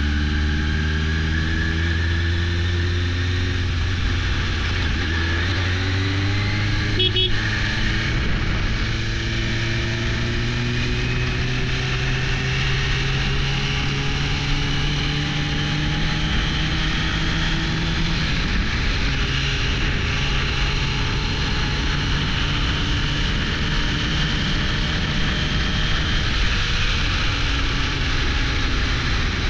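1998 Suzuki GSX-R600 SRAD's inline-four engine running at a cruise over a steady rush of wind noise. Its pitch climbs slowly through a long pull, dips once about eighteen seconds in, then holds steady. There is a brief click about seven seconds in.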